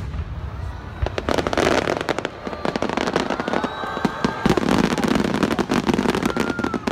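Fireworks going off in a dense barrage: repeated sharp bangs from bursting shells over a thick crackle of crackling stars, which swells about a second and a half in and stays heavy until near the end.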